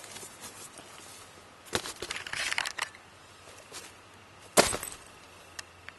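Rustling and clicking of things being handled, with one loud sharp knock a little past halfway.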